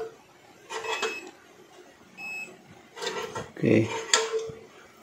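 Short high beeps from a multimeter's continuity tester as the test lead touches the rice cooker's switch contacts, once about a second in and once about two seconds in, with clicks and rattles from handling the appliance's metal body.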